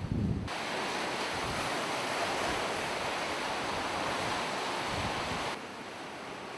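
Steady rushing wind-and-sea ambience at a harbour pier, cutting in abruptly about half a second in and cutting out about a second before the end. Quieter, gusty wind rumble on the microphone lies on either side.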